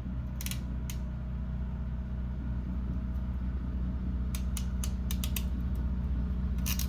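Ratcheting wire crimping tool clicking as its handles are squeezed through a crimp: two clicks early, a run of clicks about four to five and a half seconds in, and a quick cluster near the end, over a steady low hum.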